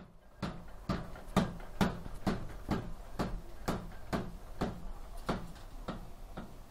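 Power hammer striking a red-hot billhook blank held in tongs, a steady run of blows at about two a second. The sound is muffled by a finger over the microphone.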